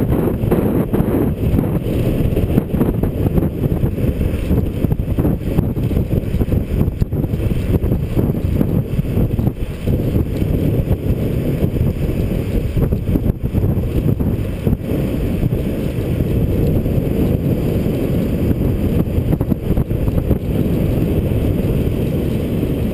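Steady low rumble of wind buffeting a GoPro's microphone on a bicycle coasting fast downhill.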